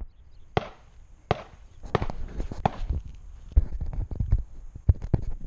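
Footsteps crunching on gravel and dirt, four steps about 0.7 s apart, followed by dull knocks and bumps as the camera is handled and set down on the ground.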